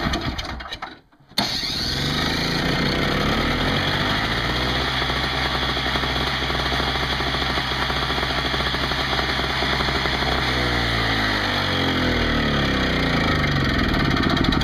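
Craftsman 5 hp two-stroke snowblower engine running on full choke just after being started, on a test run after a fuel-system repair. It cuts out briefly about a second in and then runs on, its speed sagging a little at first, holding steady, then picking up near the end.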